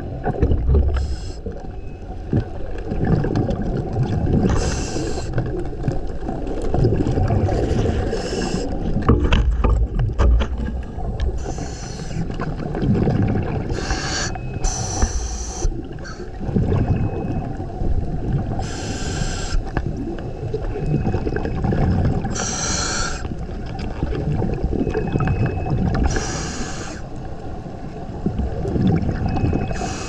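Scuba regulator breathing heard underwater: a burst of exhaled bubbles about every three to four seconds, over a steady low rush of moving water.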